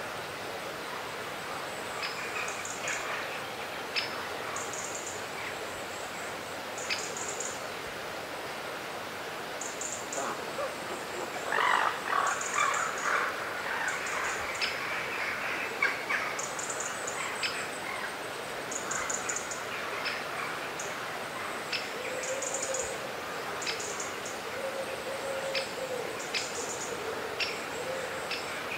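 Small birds calling: short, high-pitched trilled chirps repeat every second or two among sharp single ticks, with a burst of louder chattering about twelve seconds in. A low steady note sounds twice in the second half.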